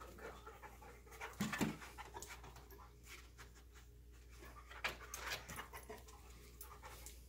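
A dog panting and sniffing at close range as it works a scent search, with a few louder short noises about one and a half and five seconds in.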